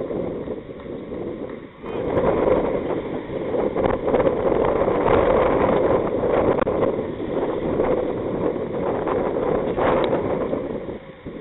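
Wind buffeting an outdoor microphone, a steady low rumble. Near the end comes a single sharp knock of a cricket bat striking the ball.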